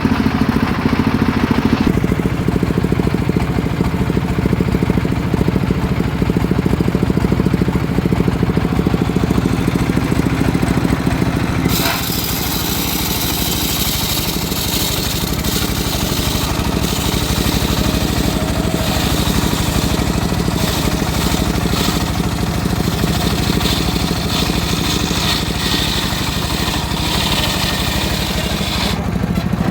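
Engine of a homemade circular sawmill running steadily under load. About twelve seconds in, a harsh hissing noise joins as the blade rips through the teak log, and it stops shortly before the end.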